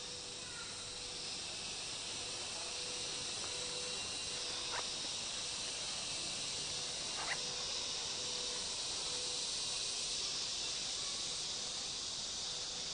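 Outdoor ambience of insects droning in the trees: a steady high hiss that swells slightly in the middle, with two faint clicks about five and seven seconds in.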